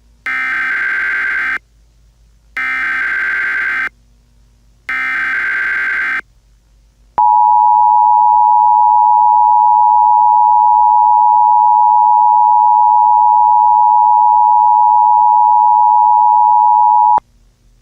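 Emergency Alert System tones: three short bursts of warbling SAME header data, then the two-tone EAS attention signal held steady for about ten seconds before cutting off.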